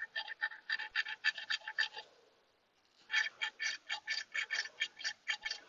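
Rapid, even run of short clicking calls, about seven a second, stopping for nearly a second a little after two seconds in, then starting again.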